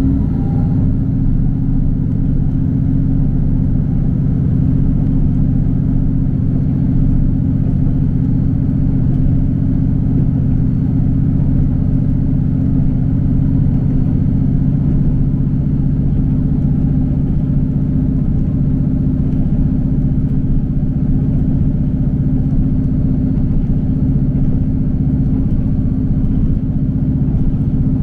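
Inside a moving passenger train: the carriage's steady low rumble of running on the rails, with an even drone underneath.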